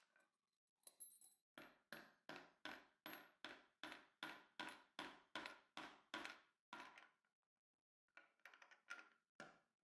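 Hammer tapping a small finish nail into a drilled hole in a wooden table leg: a long run of light, even strikes about three a second, a short pause, then a few quicker taps near the end.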